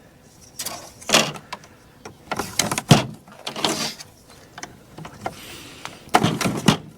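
Foam and plastic parts of a Nudura One insulated concrete form scraping and rubbing as they are slid together, in several short, irregular bursts.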